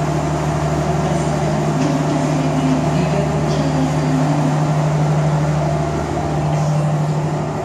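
Steady low mechanical drone of a passenger train standing at the platform, with one strong low tone held unchanged throughout.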